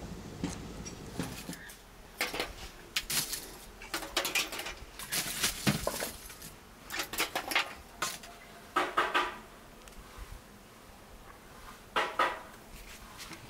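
Metal tongs clinking against sheet-metal buckets as lumps of charcoal are picked up and dropped onto a grate, in irregular clusters of sharp clinks and clatters.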